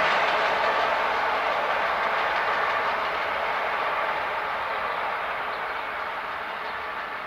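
Intermodal freight train rolling away along the track, the rumble of its wagons' wheels on the rails fading steadily as it recedes.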